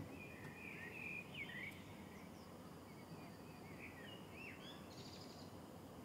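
Faint outdoor ambience: birds chirping in short, quick calls, most of them in the first couple of seconds, over a steady low rumble of background noise.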